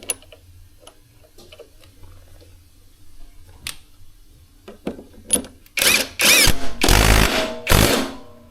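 A power driver running in four short bursts, with a whine that rises and falls, as the central bolt pulls the new drum pulley onto the washing machine's drum shaft; light clicks of parts being handled come before.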